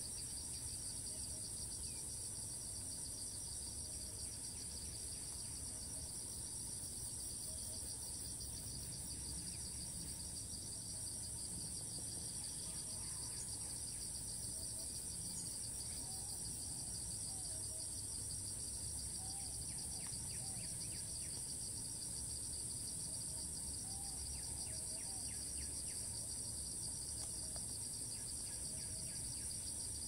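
Cicada calling: a steady, high-pitched, finely pulsed buzz that goes on without a break.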